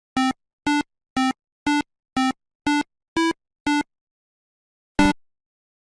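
Electronic beeps: eight short buzzy tones at about two a second, the pitch stepping slightly between them, then one louder, sharper blip about five seconds in.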